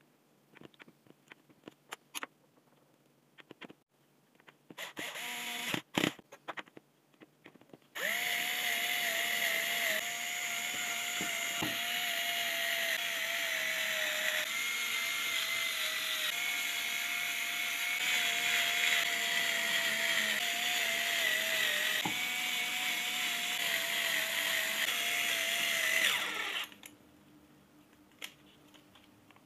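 Clicks and knocks of plastic tool parts being handled. Then, about eight seconds in, a small electric power-tool motor starts and whines steadily for about eighteen seconds, its pitch wavering and dipping briefly a few times before it cuts off.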